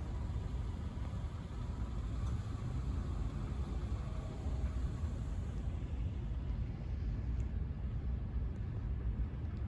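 Steady low rumble of outdoor street ambience, with no distinct event standing out.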